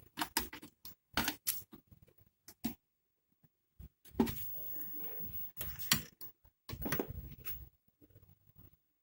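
Irregular small clicks, taps and brief scrapes of tools and parts being handled at a workbench during electronics repair, with a short quiet spell about three seconds in.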